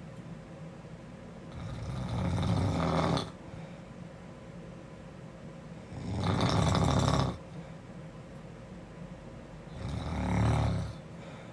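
A girl snoring: three snores about four seconds apart, each lasting a second or more.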